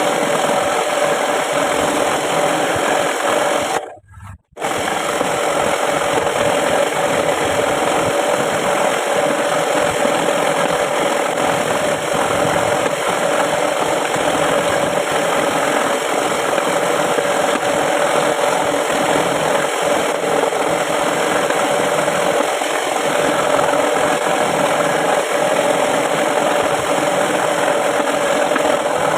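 Homemade scroll saw running, its reciprocating blade cutting through a wooden board with a steady buzzing rattle. The sound briefly drops out about four seconds in, then resumes.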